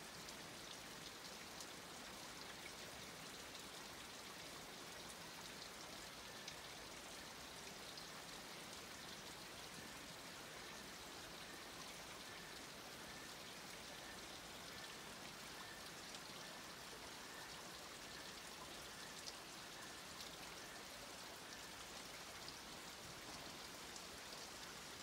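Faint, steady patter of light rain and drips in wet forest, with a faint run of short, evenly spaced high notes through the middle.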